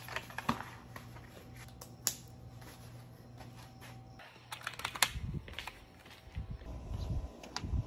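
Handling noise as a bike helmet is put on and adjusted: scattered light clicks and knocks, with a cluster of soft thumps about halfway through, over a steady low hum.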